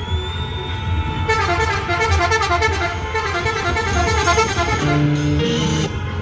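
Musical car horn (a Turkish 'Arab horn') driven by an electronic horn controller, playing a melody of quick short notes that step up and down, after a held tone at the start.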